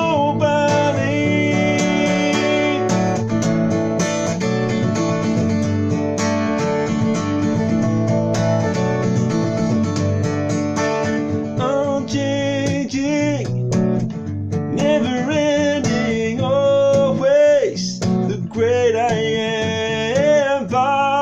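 Acoustic guitar strummed steadily in chords. In the second half a man's voice comes in over it, singing long, wavering held notes.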